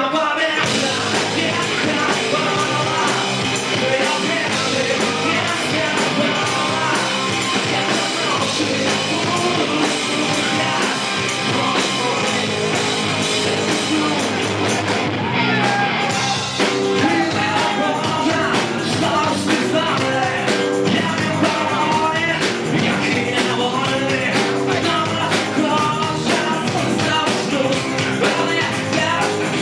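A rock band playing a song with a singing voice over it, loud and dense throughout; the arrangement shifts about sixteen seconds in.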